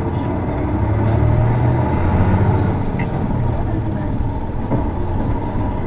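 Isuzu Erga city bus's diesel engine heard from inside the cabin while under way: a deep steady drone that swells about a second in and eases after about two and a half seconds. This bus's engine has a distinctive abnormal noise, a trait seen in other PKG-era Ergas, especially automatics.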